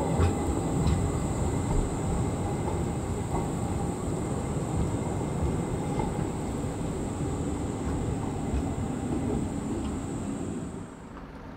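Škoda 15T low-floor trams running on the rails: a steady low rumble with a few knocks early, and a steady high whine over it. The whine and most of the rumble stop near the end.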